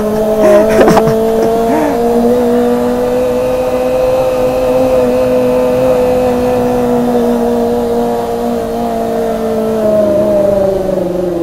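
Kawasaki ZX-25R's inline-four engine running at steady revs with an even pitch. About ten seconds in, the revs drop as the throttle eases.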